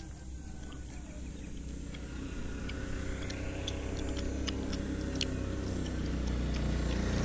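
A motor vehicle's engine running and growing steadily louder, as if approaching, with a few sharp clicks over it.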